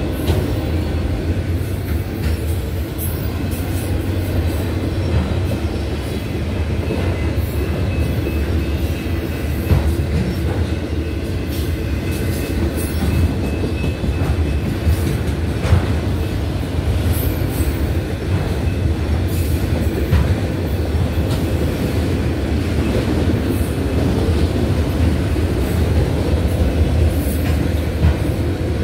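Autorack freight cars rolling past: a steady rumble of steel wheels on rail, with a faint high wheel squeal at times and a few sharp knocks as the cars go by.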